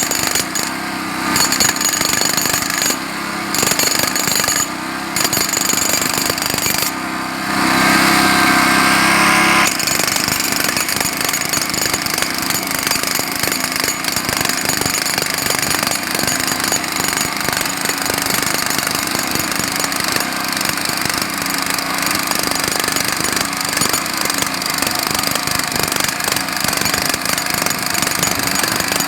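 Jackhammer hammering in rapid, continuous blows, with a few short breaks in the first several seconds. From about seven to ten seconds in it turns louder and more even before the steady hammering resumes.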